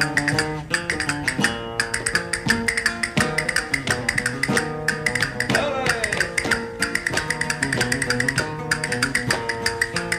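Flamenco acoustic guitar playing seguiriyas, a fast run of sharp plucked and strummed notes with percussive attacks.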